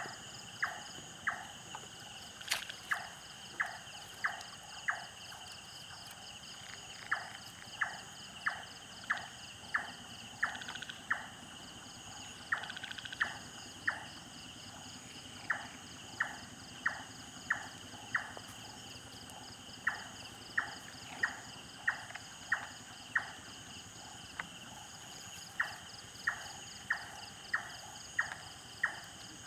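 Night outdoor sound: a steady high-pitched insect chorus, with a short clicking call repeated about twice a second in runs broken by pauses of a second or two.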